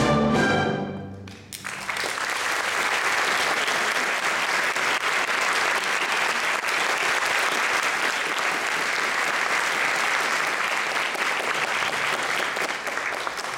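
An orchestra holds a final chord that cuts off about a second in, and an audience breaks into steady applause that keeps on to the end.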